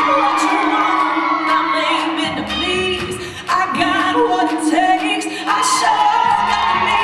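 Recorded song with a lead singer, played loud for a dance routine. The track thins out briefly about three seconds in and comes back in suddenly with a hit.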